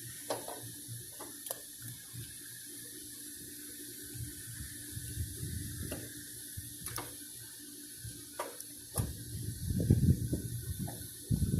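Scattered light clicks and knocks of hand work as a new air-conditioner magnetic contactor is fitted and its wires fastened, over a steady hiss. A louder low rumbling sets in near the end.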